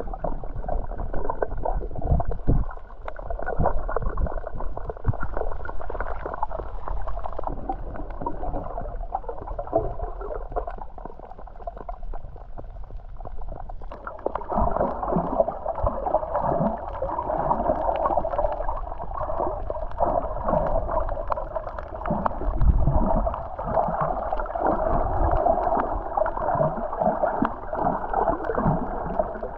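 Muffled underwater sound picked up by a camera in a waterproof housing: water sloshing and gurgling, with irregular low bumps. It becomes fuller and louder about halfway through.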